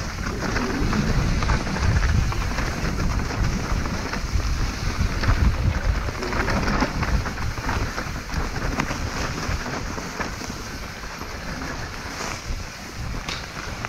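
Mountain bike ridden fast down a rough trail: wind buffeting the microphone, with a constant rattle of knocks from the tyres and bike over the rough ground.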